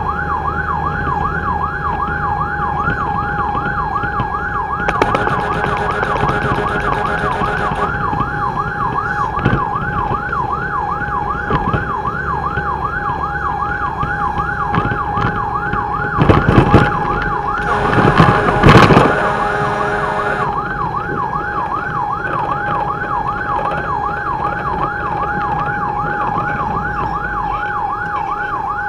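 Fire truck siren on a fast yelp, a wail sweeping up and down a couple of times a second, over the pumper's engine and road noise. A louder burst of noise cuts in a little past halfway.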